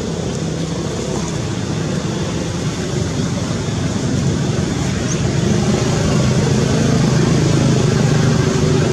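A motor engine running steadily, its low hum getting a little louder from about five seconds in.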